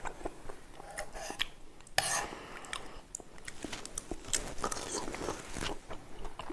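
Close-miked chewing and biting as a spoonful of chotpoti is eaten, with irregular small crunches and clicks and a louder crunch about two seconds in. The chickpeas and peas in it are undercooked and hard.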